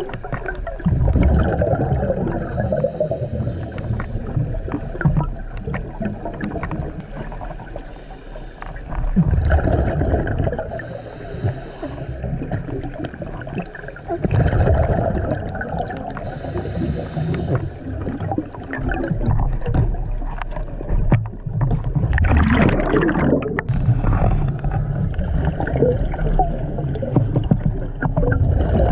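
Scuba diver breathing through a regulator underwater: a short hiss on each inhalation every few seconds, followed by the bubbling rush of exhaled air, with one louder burst of bubbles about two-thirds of the way through.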